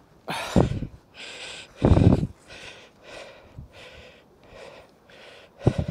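A person breathing hard in short, rhythmic puffs, about two a second, while straining on a magnet-fishing rope. Two loud rumbling thumps on the microphone come in the first two seconds.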